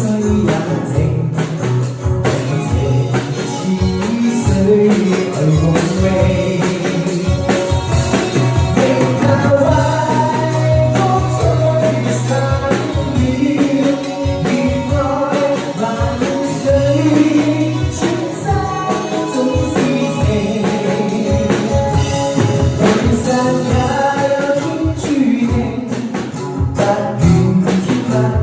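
Chinese pop song playing back at a steady loud level: singing over a band with bass and a regular drum beat.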